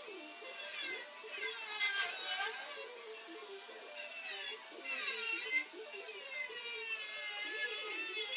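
Abrasive cutting wheel cutting steel tubing: a high-pitched whine that sags and recovers as the wheel bites and is eased off, stopping briefly about a second in and twice near the middle.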